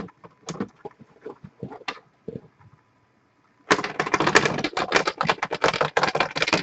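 A few scattered sharp clicks, then a dense, rapid clatter of clicks starting a little past halfway and lasting about three seconds.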